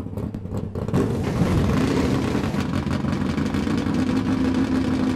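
Car engine running hard, getting louder about a second in and then holding a steady, rough note.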